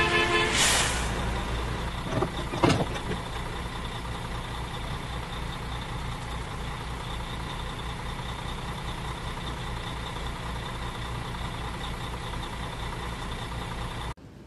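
City bus sounds: a burst of air-brake hiss about half a second in and a couple of sharp clacks around two to three seconds in, then the engine idling steadily with an even low pulse until it cuts off suddenly near the end.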